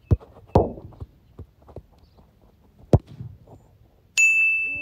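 A football kicked on artificial turf: a couple of light touches and running footsteps, then one hard strike of the ball about three seconds in. About a second later comes a sudden high metallic ring that dies away slowly.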